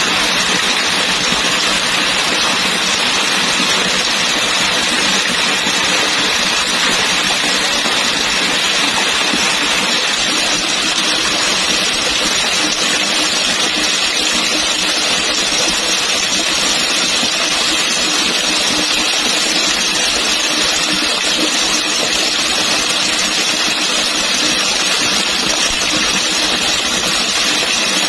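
Falling water splashing in a steady, unbroken rush, loud and even throughout.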